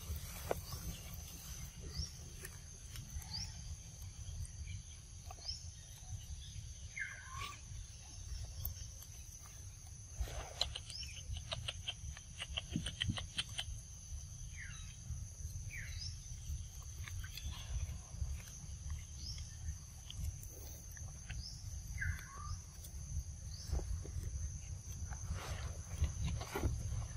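Steady high buzzing of insects, with a steady low rumble underneath. A few short falling chirps come now and then, and there is a rapid run of clicks about ten to thirteen seconds in.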